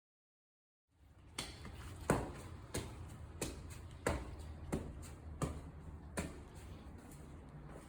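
A run of about eight light, sharp knocks, evenly spaced at roughly one and a half per second, over quiet room sound, starting about a second in after a moment of silence.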